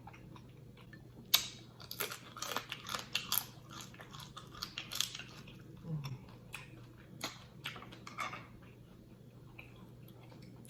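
Close-miked eating of a blue crab seafood boil in sauce: a sharp crack about a second and a half in, then a run of crunching, wet biting and chewing clicks that thins out near the end.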